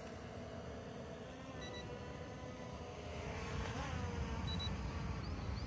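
F198 toy camera quadcopter's propellers whining as it comes down and lands, the note wavering about four seconds in at touchdown. A few short electronic beeps sound over it, the drone's low-battery warning.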